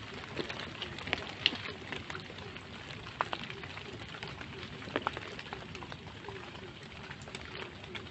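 Light drizzle pattering: a steady hiss of rain with scattered sharper drop ticks, a few louder ones standing out about a second and a half, three seconds and five seconds in.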